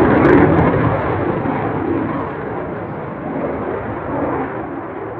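Jet noise from a Dassault Rafale fighter's twin Snecma M88 turbofans during a display pass. It is loudest at first and fades over the first couple of seconds, then continues as a steadier rumble.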